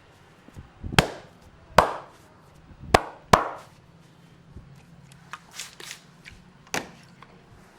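Sharp hand slaps of a traditional Indian head and shoulder massage: four loud slaps within about two and a half seconds, some lighter taps, then one more slap near the end.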